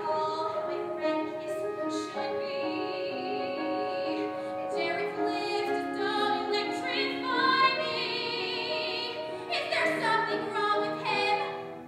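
Music with operatic singing over accompaniment, long held notes sung with vibrato; the music dies away just before the end.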